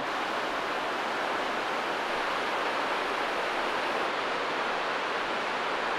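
Steady rush of fast-flowing river water, an even unbroken noise.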